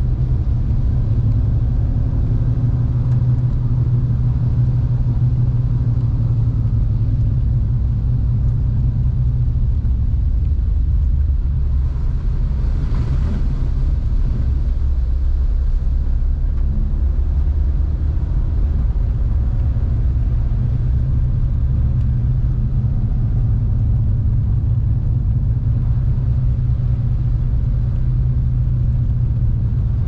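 Car driving on a wet road in the rain, heard from inside the cabin: a steady low rumble of engine and tyres under a fainter hiss of rain and water. The hiss swells briefly near the middle.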